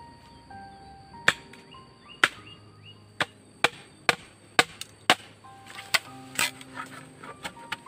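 Machete chopping into a green bamboo pole: a series of sharp knocks about every half second, then lighter, quicker taps near the end as the top is split. Soft background music runs underneath.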